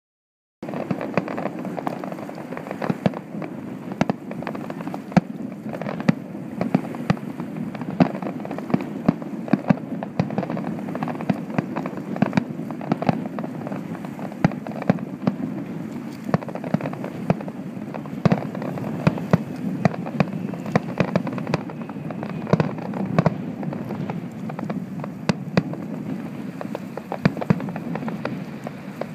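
Aerial firework shells bursting: many sharp bangs at irregular intervals over a continuous din, starting about half a second in.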